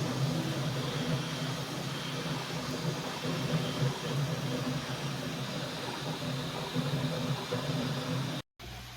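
3D printer running: a steady hum of fans and stepper motors with shifting motor tones and a hiss. It cuts out briefly near the end and gives way to a lower, steadier hum.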